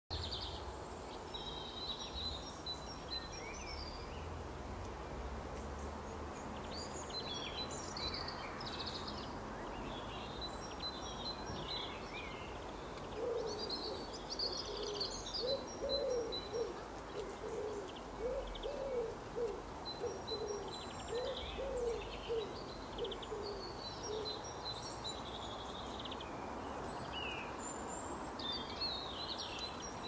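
Small songbirds chirping and singing in short high phrases and trills throughout. In the middle, a run of low repeated bird calls, about two a second, goes on for some ten seconds.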